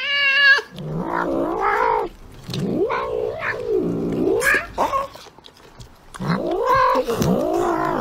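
Tabby cat yowling insistently, a run of drawn-out calls that rise and fall in pitch, as it demands the food held at a person's mouth.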